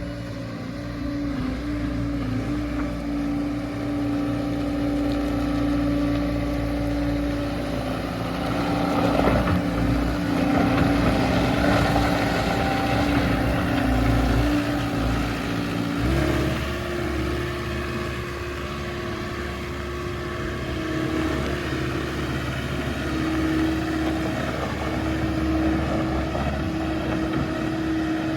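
John Deere 320G skid steer's diesel engine running steadily, with a louder, rougher stretch in the middle; about halfway through, the engine's pitch steps up and holds at higher revs.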